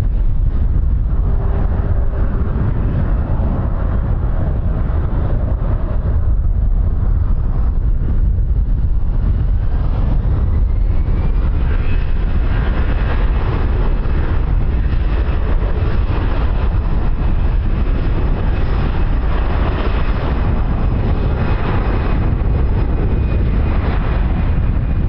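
Aircraft engine with a heavy low rumble. Its whine rises in pitch about a third of the way in, then holds steady at a high pitch, with wind buffeting the microphone.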